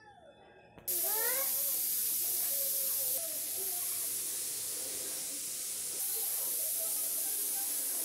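A loud, steady hiss sets in suddenly about a second in and covers everything else, with faint voices underneath.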